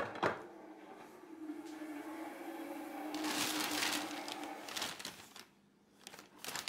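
A sharp knock as a can is set down, then a thin plastic carrier bag rustling and crinkling as hands open it around a bag of dry dog food, loudest about three to five seconds in, over a steady hum.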